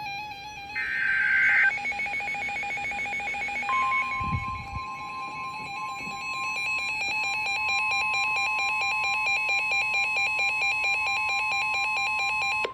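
Emergency Alert System signal: a second-long screech of digital data tones (the SAME header burst) about a second in, then a steady, high alert tone from about four seconds in, held until the voice warning starts. A fast, evenly pulsing tone runs underneath.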